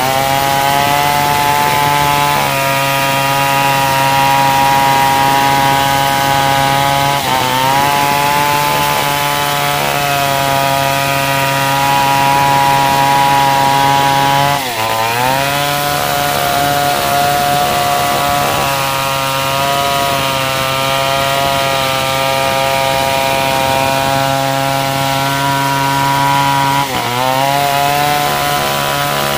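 Large two-stroke chainsaw at full throttle, ripping a hard matoa log lengthwise along the grain. Its steady high engine note sags sharply and recovers three times as the chain bogs in the cut.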